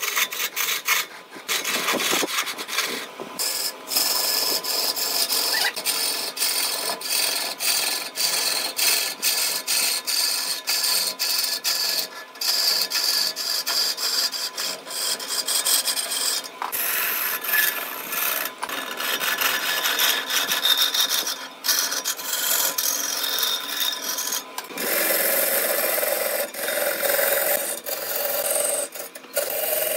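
A flat lathe chisel shearing shavings off a large spinning wooden spindle on a wood lathe: a continuous rough, hissing scrape with many brief breaks. It turns lower in tone for the last few seconds.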